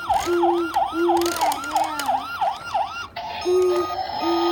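Toy emergency vehicle's electronic siren sound effect: a fast yelping wail of about three pitch sweeps a second over a pulsing lower beep. About three seconds in it switches to a different electronic effect, a hiss with steady repeated beeps.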